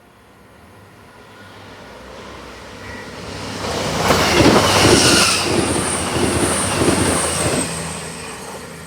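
A train passing at speed, its noise building, peaking and then fading away. At the loudest part the wheels click over rail joints several times, and a thin high-pitched whine comes from the wheels.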